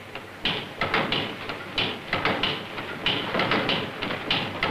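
Early experimental Diesel engine on its trial run: a run of irregular mechanical knocks and hissing puffs, about three a second.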